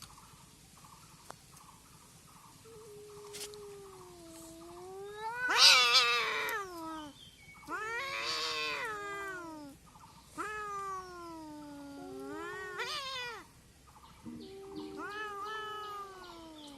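Cats caterwauling in a fight standoff: long, drawn-out, wavering yowls that rise and fall in pitch, peaking in a loud screech about six seconds in, followed by several more howls.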